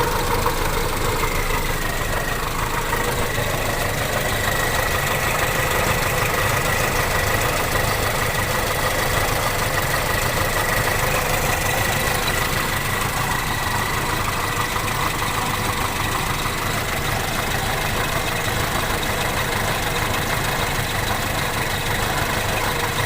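Toyota Kijang Super's 5K four-cylinder engine idling with a snoring, croaking noise ("ngorok") from the engine bay that sounds like something running dry, which the owner takes to come from outside the engine: the fan belt, a pulley or a worn AC compressor. A thin steady whine sets in about a second in.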